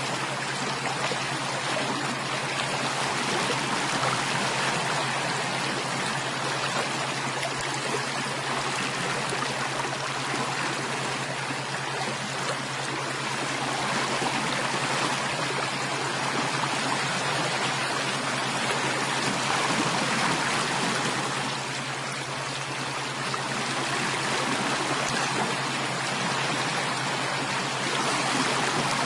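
Stream water flowing and trickling steadily, an even rushing with no breaks.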